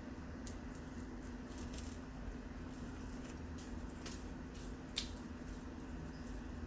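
Faint, scattered rustles and light clicks from cats playing with a bird toy, the sharpest about five seconds in, over a steady low hum.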